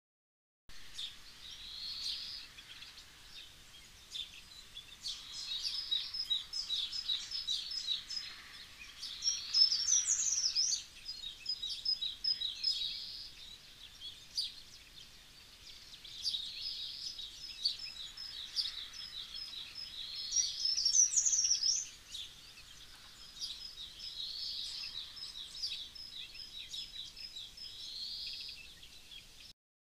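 Small songbirds singing and chirping: phrases of rapid high chirps and rising whistles, repeated every few seconds. The loudest phrases come about ten and twenty seconds in.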